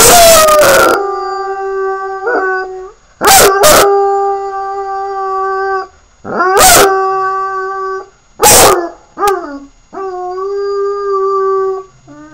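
A yellow Labrador puppy howling: a string of about six long, steady-pitched howls, several of them opening with a sharp, loud yelp.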